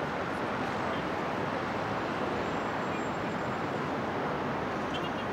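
Steady road traffic noise: an even, dense hum of passing vehicles, with a few faint ticks near the end.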